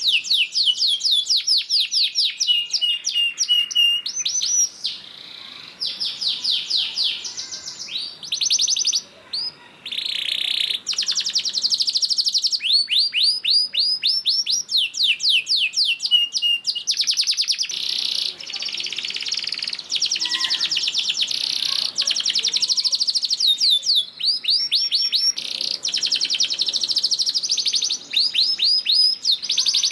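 Domestic canary singing a long, loud song of fast trills and rolls: runs of quickly repeated falling notes, with a few short pauses between phrases.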